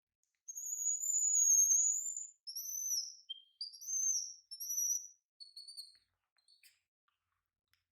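A baby monkey's series of high, thin, whistle-like squeals: one long call of about two seconds, then about six shorter calls that rise and fall, followed by a few faint clicks.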